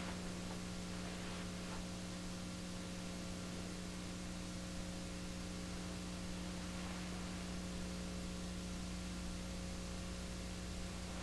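Steady electrical mains hum with a faint hiss underneath, and no other sound.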